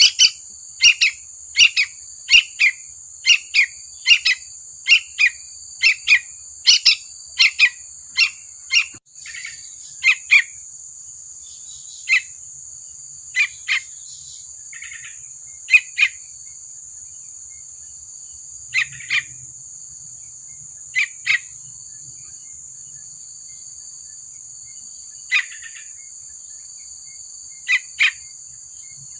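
Juvenile yellow-vented bulbul (trucukan) calling with short, sharp chirps. For about nine seconds they come in quick succession, nearly two a second, then sparser, mostly in pairs every few seconds. A steady high-pitched ringing runs underneath.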